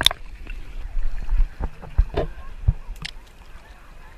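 Seawater sloshing and lapping against a paddleboard and its waterline action camera, with several short splashes over a steady low rumble of water on the microphone.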